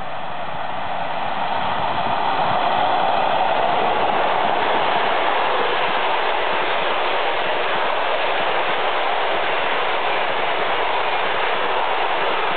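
A passenger train hauled by a ChS7 twin-section electric locomotive passes at speed. The noise grows over the first two seconds as the locomotive comes by, then the coaches' wheels on the rails keep up a steady rush.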